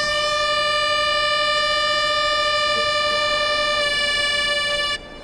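Pipe organ sounding one long, steady high note that cuts off suddenly near the end.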